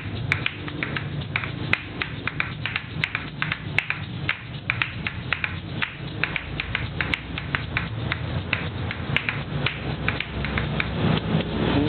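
Asalato (patica), a pair of seed-filled shells on a cord, played in a fast, steady rhythm of sharp clacks as the shells strike each other, with the seeds rattling between strikes.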